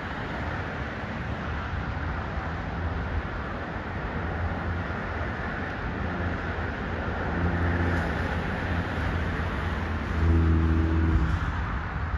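Motor vehicle noise: a steady road rush with a low engine hum that swells about seven seconds in and louder again about ten seconds in.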